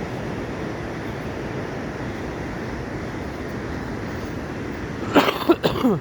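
Steady rushing of Atlantic ocean surf. Near the end a person's voice makes a short, loud sound that falls in pitch.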